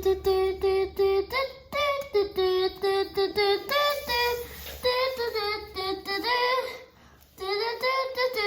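A child singing a melody, held notes broken by short pauses, with a dip in the singing around seven seconds in.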